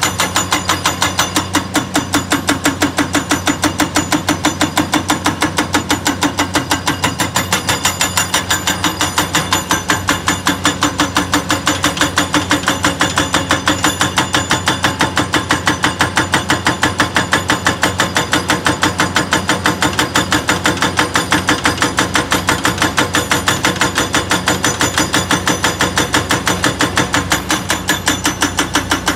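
Hydraulic rock breaker on a Cat 336D excavator pounding hard rock at an even rate of about four blows a second, with the excavator's diesel engine running underneath.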